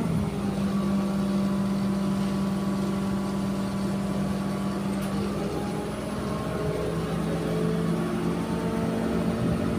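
Diesel engine of a Kato rough-terrain crane running steadily, its note shifting about halfway through.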